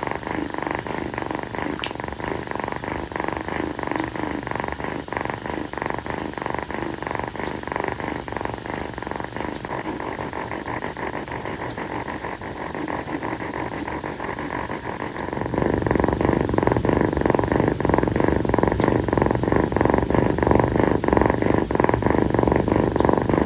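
Kitten purring steadily and continuously; the purr grows louder and fuller about two-thirds of the way in.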